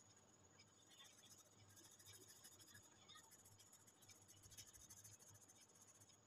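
Coloured pencil scratching faintly on paper in rapid back-and-forth shading strokes.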